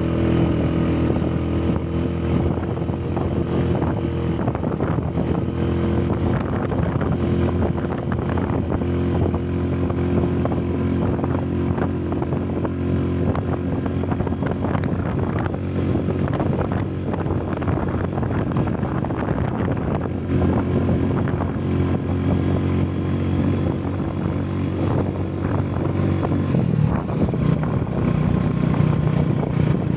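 Motorcycle engine running steadily while riding along, with wind noise rushing over the microphone; the engine note shifts near the end.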